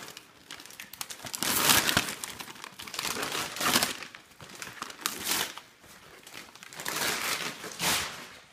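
Gift paper being crumpled and torn open as a present is unwrapped, in several rustling bursts, the loudest about two seconds in.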